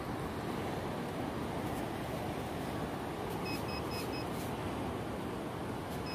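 Handheld metal-detecting pinpointer probing the sand, giving a quick run of short high beeps about three and a half seconds in and again at the end, the signal that metal lies near its tip. Under it a steady background rush.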